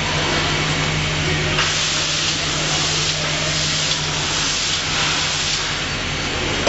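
Hamburger bun conveyor line running: a steady machine hiss over a constant low motor hum, growing a little stronger about a second and a half in.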